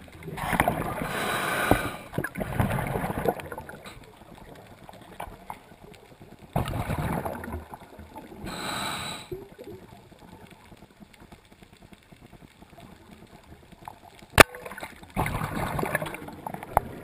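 Underwater: a scuba diver's exhaled bubbles gurgling out from the regulator in bursts of a second or more, several times over, with a single sharp crack about fourteen seconds in.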